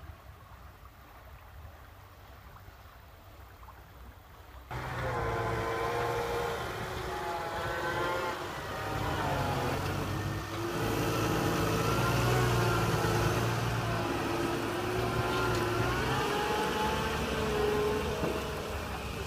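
A faint low hum, then, about five seconds in, the sound of a Case Puma 160 CVX tractor's diesel engine starts abruptly and runs on steadily under load as the tractor pulls a two-axle trailer, its pitch rising and falling as it works.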